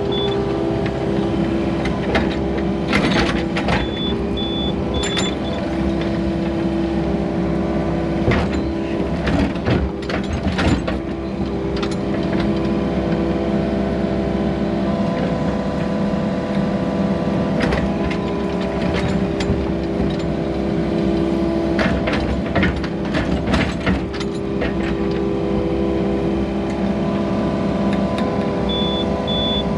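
Yanmar hydraulic excavator's diesel engine running steadily, heard from inside the cab, with occasional knocks and clatter from the machine as it works. A backup alarm beeps rapidly at the start, again about four seconds in, and near the end.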